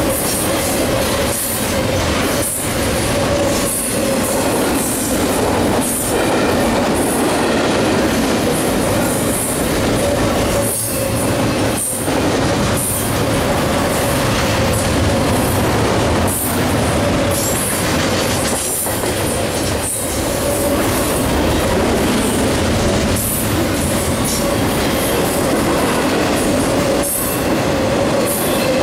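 Double-stack intermodal freight cars rolling past at speed: a steady loud rumble of steel wheels on rail with a steady tone held over it.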